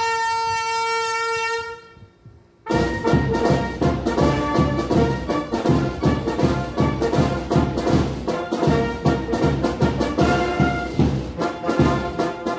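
A trumpet holds a long note that breaks off, then after a short pause a military brass band strikes up with a steady drum beat under the brass.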